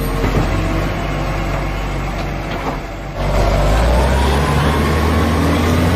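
Heavy truck engine running. About three seconds in it turns louder and deeper, with a faint rising whine.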